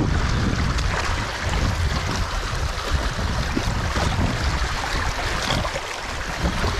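Muddy pond water rushing steadily through a breach in a beaver dam as the dam drains.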